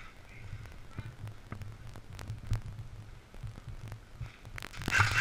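Muffled low thudding of footsteps and body movement picked up by a body-worn camera as an airsoft player creeps along a wall, with a few sharp clicks scattered through it. A louder, noisier sound comes in near the end.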